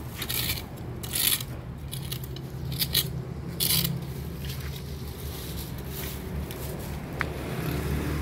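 Short bouts of scraping and rustling, several in the first few seconds, as leaves and litter are picked out of a concrete drain gutter and put into a plastic bag, over a steady low hum.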